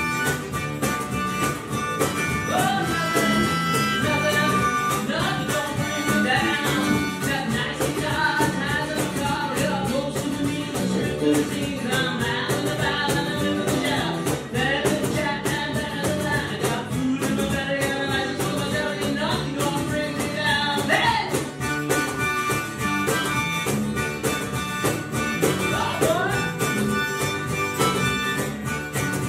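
Band music with guitar and a singing voice, playing steadily throughout; from about four seconds in until about twenty-one seconds the sound turns duller, losing its top end.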